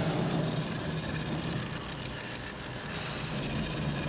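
Avey Model VSA drill press running, a steady mechanical hum from its motor and spindle.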